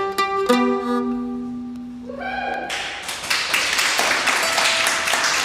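Irish bouzouki, played with a pick, finishing a tune: a few quick notes, then a final low chord left ringing. Clapping starts about halfway through and runs on.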